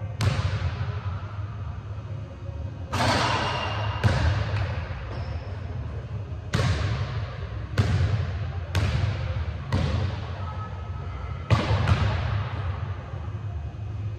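Basketball bouncing on a hardwood gym floor: about nine separate bounces at uneven intervals of roughly a second, each echoing in the large, empty hall, over a steady low hum.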